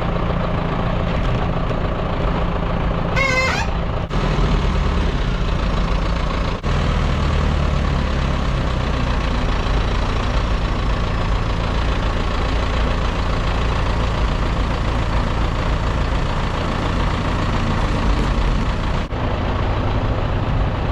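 Farm tractor engine running steadily under load while a hay baler works, with a short warbling high-pitched tone about three seconds in.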